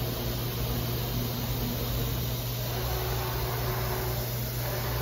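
Techno HDS CNC router's gantry jogging along its long axis at 620 inches a minute, its helical rack-and-pinion drive giving only a faint, smooth running sound over a steady low hum. The quiet, even motion is taken as a sign of little wear or backlash in the gears and pinions.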